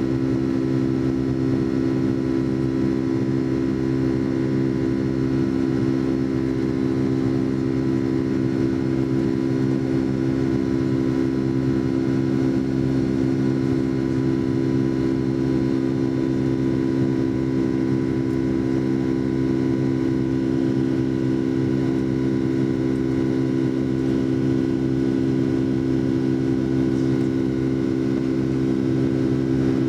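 Steady drone of a Boeing 757-200's jet engines heard inside the passenger cabin: a constant hum made of several steady low tones that holds level throughout.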